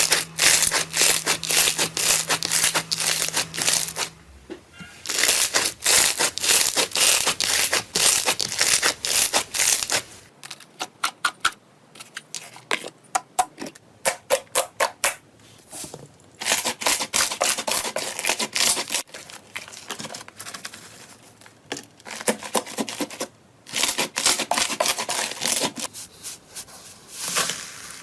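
Slime being squished and pressed, with dense crackling and popping. The sound comes in several separate clips that change abruptly every few seconds, and a stretch in the middle has sparser, separate clicks.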